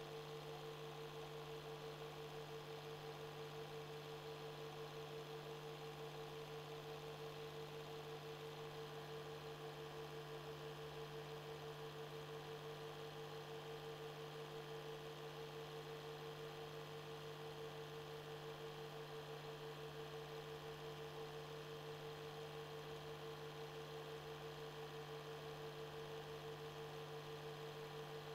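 Steady electrical hum, two unchanging tones over a faint hiss, the only sound on a silent 8mm film transfer.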